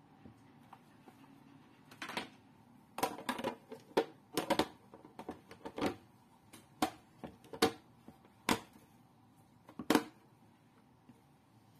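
Plastic food container being closed: its clip-lock lid is set on and pressed down and its latches snapped shut, giving about a dozen sharp plastic clicks and knocks spread over several seconds, the loudest cluster a few seconds in and a last loud one near the end.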